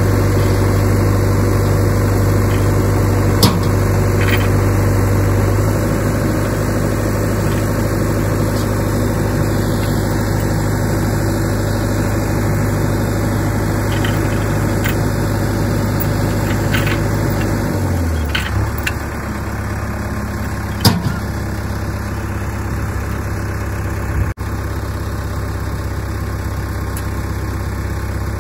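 Diesel engines of a JCB backhoe loader and a tractor idling steadily; about 18 seconds in, the engine note drops lower. A few short sharp clicks sound over the running engines.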